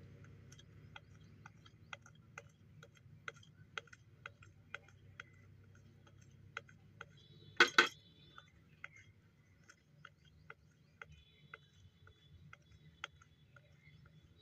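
Faint, even ticking about twice a second, with one brief metallic clatter that rings for a moment about eight seconds in.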